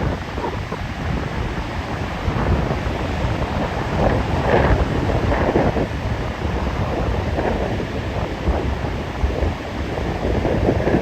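Stormy sea: surf crashing and churning in irregular surges, with strong wind buffeting the microphone.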